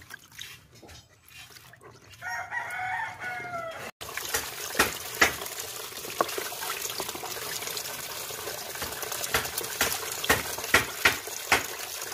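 A rooster crows once, about two seconds in, for over a second. From about four seconds in, tap water runs and splashes into a basin as hands rub and wash a plucked chicken, with frequent sharp splashes and knocks.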